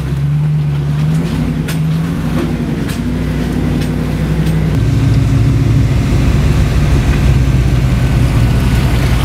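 International Harvester Scout's engine running as the truck drives along a rough trail, its pitch shifting down a little about five seconds in.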